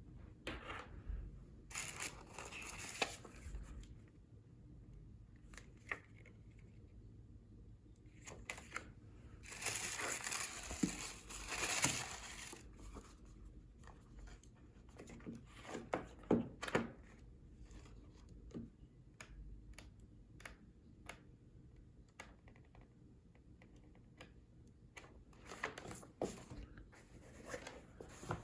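Packaging being handled and opened: crinkling, rustling and tearing in bursts, with scattered clicks, the longest stretch of rustling about ten seconds in.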